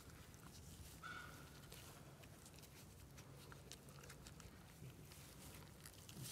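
Near silence: faint outdoor ambience with a low steady hum and scattered faint clicks, and a brief faint high tone about a second in.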